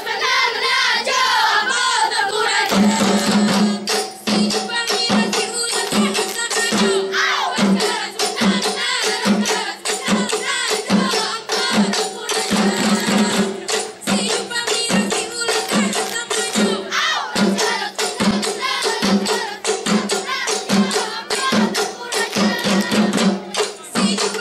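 Group performance of an Indonesian seated dance: singing at first, then from about three seconds in a steady drum beat about twice a second, with quick hand claps and body slaps from the dancers and singing over it.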